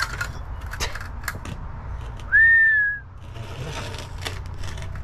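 A short whistle a little after two seconds in: one clear note that rises and then holds for under a second. Around it come scattered clicks and scrapes of a hand tool working soil and gravel.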